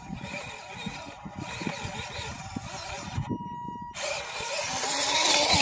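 Small RC crawler's electric motor and gearbox whining as it drives, with its tyres crackling over dry dirt clods. The sound drops away for a moment about three seconds in, then comes back louder and grows as the truck nears.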